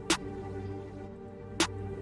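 Electronic beat playing back: a held synth chord with two snare hits about a second and a half apart.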